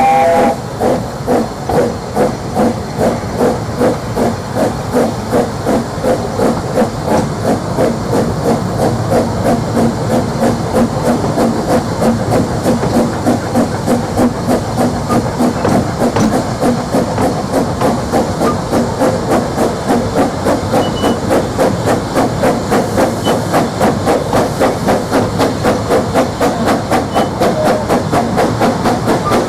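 Steam locomotive chuffing, with a short whistle at the start. The beats come about two a second at first and gradually quicken to about three a second as the train gets under way.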